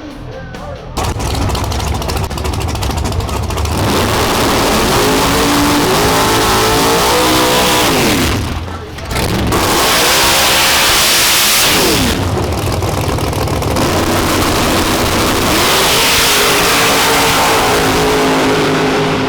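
Drag-racing car engines at full throttle on a pass, their pitch climbing and then dropping with each gear change. There is a brief dip about eight and a half seconds in, then full throttle again.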